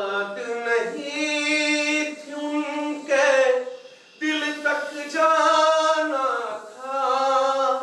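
A man singing unaccompanied in long, drawn-out phrases with slow bends in pitch. He breaks off briefly about four seconds in, then takes up the song again.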